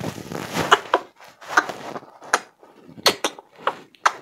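A series of irregular, sharp taps and knocks, about a dozen in four seconds, with a short rustling noise near the start.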